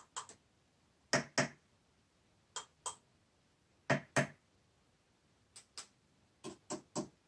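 Light, sharp knocks in quick pairs, about six pairs a second or so apart, from fingers tapping and handling the plastic housing of a Saab 9-5 direct ignition cassette.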